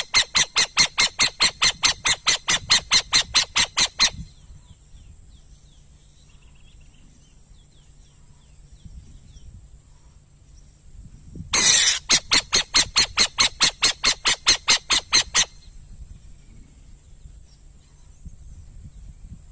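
Owl calling in two bouts of evenly spaced, harsh rasping notes at about five a second, each lasting three to four seconds. The second bout starts about twelve seconds in with a short harsh screech. A faint steady high-pitched whine runs underneath.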